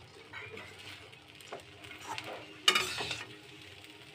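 Metal spatula stirring and scraping sabudana khichdi around a steel kadai on the heat, with a faint sizzle under it. There are several short scrapes, the loudest about three seconds in.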